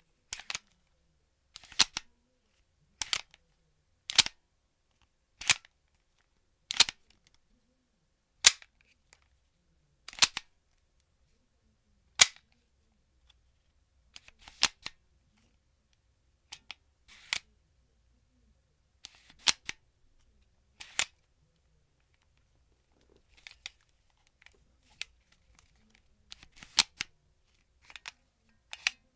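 Sharp mechanical clacks and clicks of a Marushin M9 Black Heavy Weight model gun being handled: its slide mechanism is worked and its magazine is pulled out and inserted. About twenty short clicks, some in quick pairs, come a second or two apart, with a longer pause a little after the middle.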